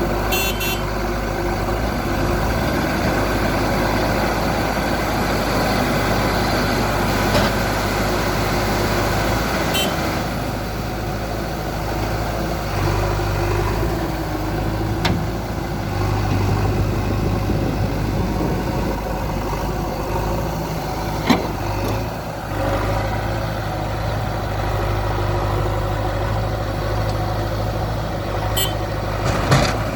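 Heavy diesel engines of a JCB 3DX backhoe loader and a tipper lorry running steadily, the low engine hum swelling and easing at times, with a few short sharp knocks.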